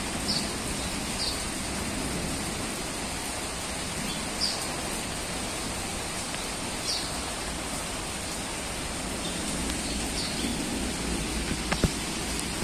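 Steady rain falling on a wet paved courtyard, an even hiss. A few short high chirps come every few seconds, and a single sharp click sounds near the end.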